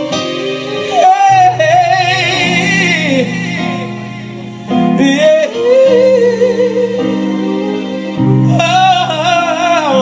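Live band playing a slow ballad: sustained keyboard and guitar chords under a singer's long, wavering vocal runs with heavy vibrato, coming in three phrases with a short lull near the middle.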